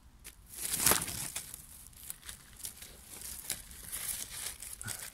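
Dry fallen leaves and twigs rustling and crackling as they are disturbed on the forest floor: one louder swish about a second in, then a run of small irregular crackles.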